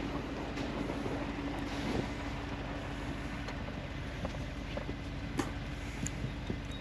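Truck engine idling steadily, with wind noise on the microphone.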